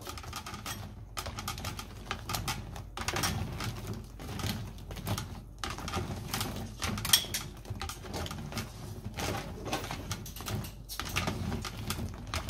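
Chestnuts in hot water being stirred with silicone-tipped kitchen tongs in a ceramic bowl: irregular clicks and knocks of the nuts and tongs against each other and the bowl.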